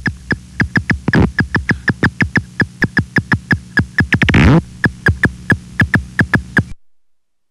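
Silver-haired bat echolocation calls made audible by a bat detector: a regular run of sharp clicks, about four or five a second. A longer, louder burst comes a little past four seconds in, and the calls stop near the end.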